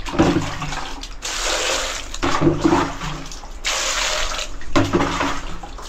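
Water pouring and splashing into a plastic bowl, in several spells with short pauses between them.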